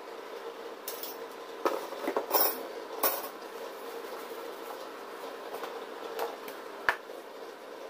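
Handling noise on a tiled floor: sharp clacks and knocks as a steel ruler, a ribbed panel and a wooden board are picked up and set down, a cluster of them between about one and three seconds in and two more near the end. A steady low hum runs underneath.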